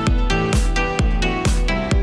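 Background music with a steady beat, about two beats a second, over held melody notes.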